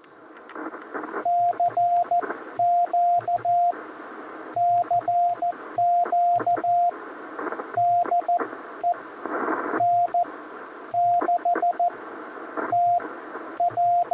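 Morse code (CW) from a Ten-Tec Argonaut shortwave transceiver: a steady, fairly high tone keyed in dots and dashes over receiver hiss, which cuts out and returns in step with the keying, with small clicks at the key strokes.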